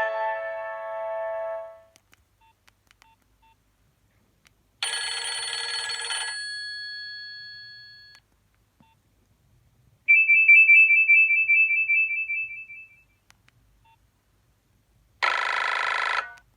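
Nokia 2760 mobile phone playing a run of short preloaded ringtones through its small speaker. A melody ends in the first two seconds. Then come a short burst with ringing tones fading out, a fast high pulsing beep about ten seconds in, and a short dense buzzy burst near the end, with silence between them.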